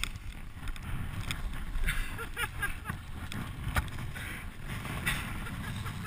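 Skis running through deep powder snow, with low wind rumble on the microphone and several short scrapes and knocks as snow-covered fir branches brush past.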